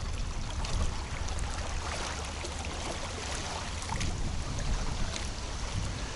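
Strong wind blowing across the microphone with a steady low rumble, over small waves lapping at the water's edge.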